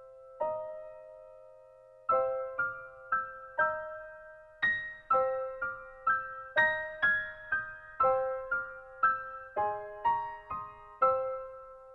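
Background music: a slow piano melody of single struck notes, each one dying away before the next.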